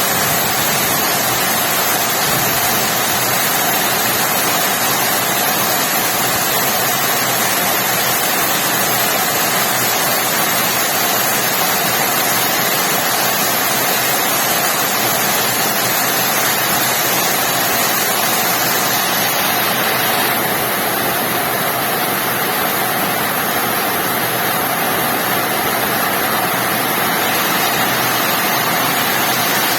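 Rain falling steadily, a dense even hiss that softens slightly about two-thirds of the way through.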